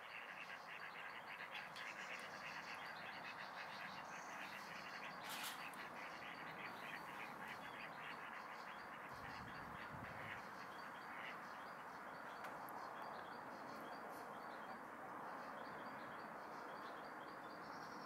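Faint outdoor bird chorus: many small birds chirping and calling over a steady hiss. A brief click about five seconds in.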